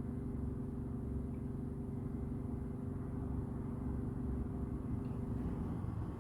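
A steady low mechanical hum with a constant pitch, which stops shortly before the end.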